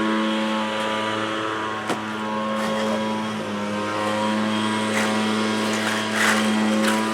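A steady engine drone holds one pitch throughout. Near the end come several short scrubbing strokes, a brush working cement primer into rough concrete.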